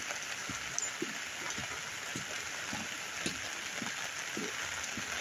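Rain falling steadily with floodwater running in an arroyo: an even hiss, with scattered soft taps.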